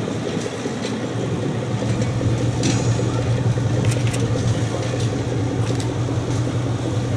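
X 2800 railcar's diesel engine running in a steady low drone as the train moves slowly, with a few short clicks about three and four seconds in.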